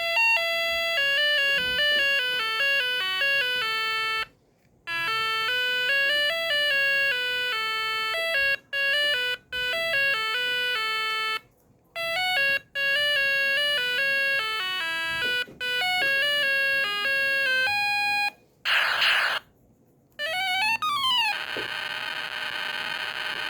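Vintage sound-effects keychain playing tinny electronic beeping tunes, one note at a time, stopping and restarting several times. Near the end come a short hiss-like burst, a few quick sweeping zaps, and a steady electronic buzz.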